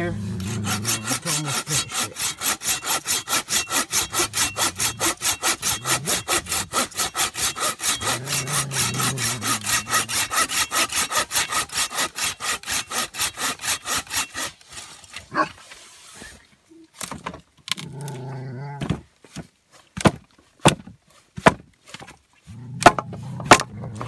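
Hand saw cutting through a wooden pole in steady back-and-forth strokes, about four a second, stopping about fourteen seconds in. After that, scattered sharp knocks and clicks.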